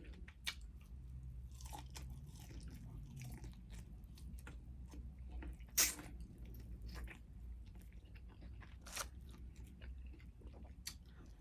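Close-miked chewing and biting on a chicken wing, soft wet mouth sounds with scattered small crunches and clicks; the sharpest crunches come about six and nine seconds in.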